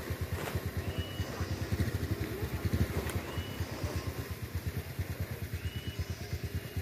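A vehicle engine idling: a steady, rapid low pulsing, with a couple of sharp knocks about half a second and three seconds in.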